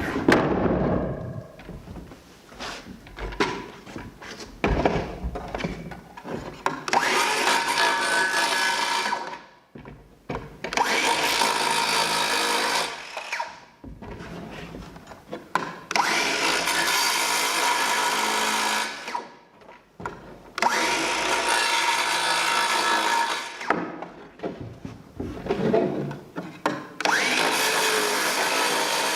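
A handheld power tool working wood in five runs of about three seconds each, stopping briefly between them. Before the first run come a few seconds of scattered knocks and clatter.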